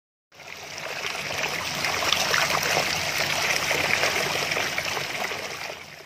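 Running water trickling and babbling like a stream, a steady dense rush that fades in just after the start and fades out near the end.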